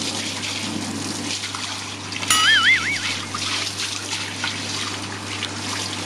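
Water from a garden hose splashing steadily onto soaked fabric pet-bedding pads on a tiled floor. About two seconds in, a short wobbly whistling sound effect wavers up and down for under a second.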